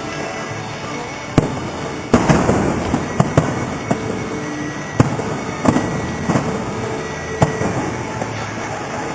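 Fireworks display, with aerial shells bursting in about eight sharp booms at irregular intervals. The strongest, a little over two seconds in, trails off for a second or so.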